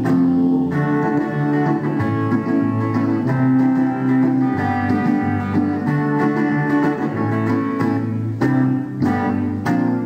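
Instrumental passage of a live pop-rock song: electric guitar and electronic keyboard playing sustained chords over a bass line that changes about once a second, with a few sharp strummed chords near the end and no singing.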